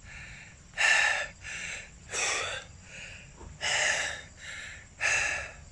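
A man panting hard, with deep rasping breaths in and out: he is out of breath after riding a bicycle up a steep hill again and again.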